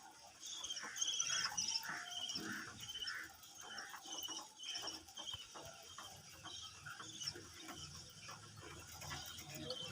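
Budgerigars chirping and warbling in a rapid run of short, high-pitched notes.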